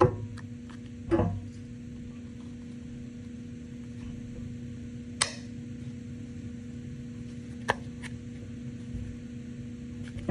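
A hand-held single-hole punch squeezed through cardboard, giving a sharp click about five seconds in and another about two and a half seconds later. A couple of dull knocks near the start come from cardboard being handled on the table, over a steady low hum.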